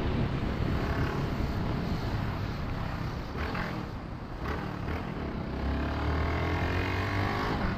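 Wind and road noise of a motorcycle ride, with the bike's small single-cylinder engine running underneath; in the last two seconds the engine note rises as it picks up speed.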